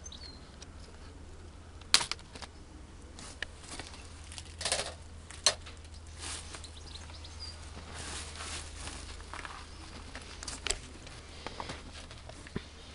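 Scattered handling sounds: sharp clicks and knocks, the loudest about two seconds in, with stretches of rustling, over a low steady hum. A bird chirps faintly near the start.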